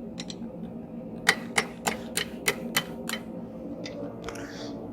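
Light hammer blows on a hot bar over the anvil horn, bending it into a loop: a run of seven quick, sharp taps, about three a second, starting just over a second in.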